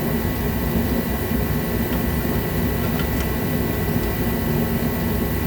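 Steady mechanical hum and hiss with a thin high tone running through it, and a couple of faint clicks about two and three seconds in.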